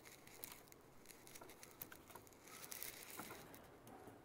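Near silence with a few faint, scattered small clicks and taps, as of printer parts being handled.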